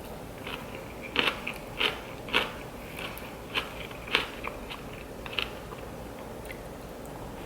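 A person chewing crunchy food, about nine sharp crunches roughly every half second, stopping about two seconds before the end.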